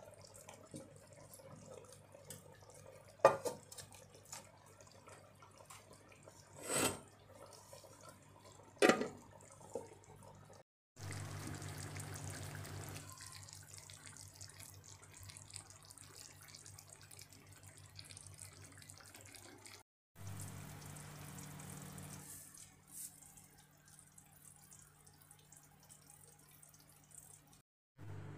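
Faint bubbling and hissing of chicken and potatoes simmering in liquid in a cast-iron skillet, with a few sharp clinks of the metal lid in the first ten seconds. Later a low steady hum sits under the hiss.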